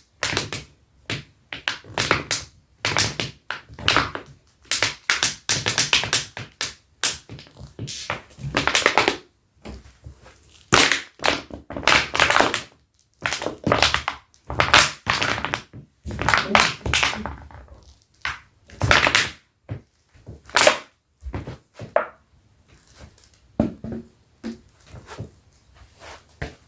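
Leather Dr Martens boots rubbed against each other, giving a long run of loud, irregular squeaks and scuffs that thin out and grow faint over the last few seconds.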